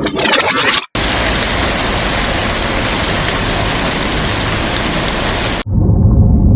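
Sound effects played back to back with abrupt cuts: the tail of a swirling effect, then about five seconds of steady, even hiss across all pitches that cuts off suddenly, then a low rumble starting near the end.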